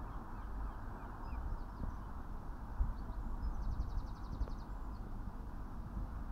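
Wind noise rumbling on the microphone, with faint bird calls over it: scattered short chirps and, a little past halfway, one quick trill lasting about a second.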